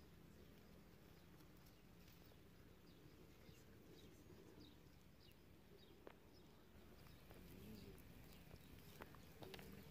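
Near silence: a faint outdoor background with a low hum, a few soft high chirps, and a few faint clicks in the second half.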